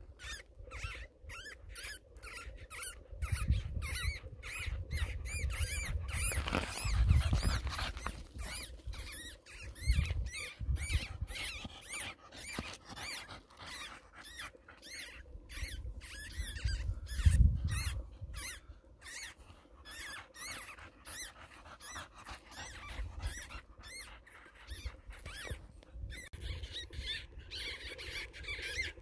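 Newborn weasel kits squeaking, a long run of short, high-pitched squeaks repeated over and over, with a few low rumbles at times.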